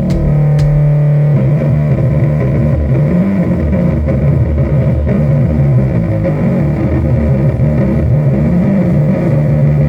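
Loud, heavily distorted electric guitar and bass playing slow, sustained low notes of a sludge-metal riff, with the notes changing about a second and a half in.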